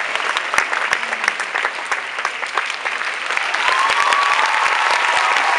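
Theatre audience applauding, many hands clapping in a dense, steady patter. A long whoop from the crowd rises over the clapping for the last couple of seconds.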